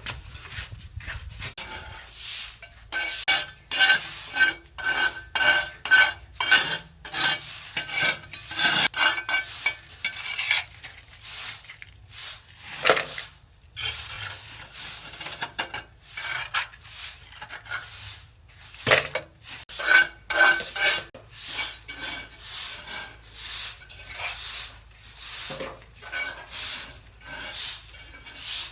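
Repeated metallic scraping and clinking strokes, a few each second, with a short lull about halfway through: a hard tool working against a hard surface.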